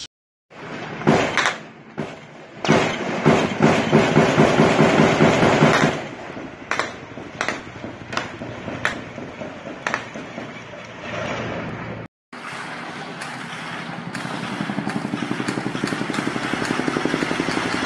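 Gunfire aimed at a police helicopter, with the helicopter's rotor and engine running: a loud, dense stretch for the first few seconds, then separate sharp shots, roughly one every half second to a second. After a cut about twelve seconds in comes a steady helicopter drone with a fast, even beat.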